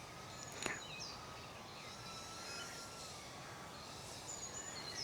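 Quiet outdoor ambience with scattered short, high bird chirps, a faint tone that wavers slowly in pitch, and a single sharp click under a second in.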